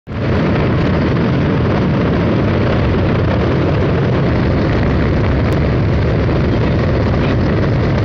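Steady, loud rumbling noise of a river ferry under way: its engine drone mixed with water rushing along the hull.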